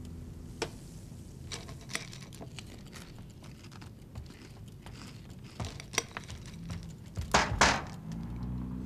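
Small clinks and taps of a spoon in a cereal bowl and a soda can set down on a kitchen table. About seven seconds in comes a short run of louder knocks.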